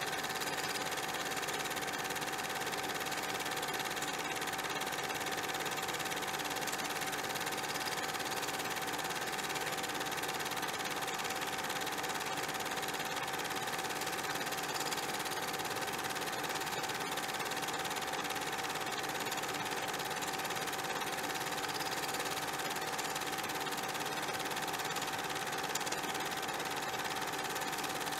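A small machine running with a steady whirr and a constant hum.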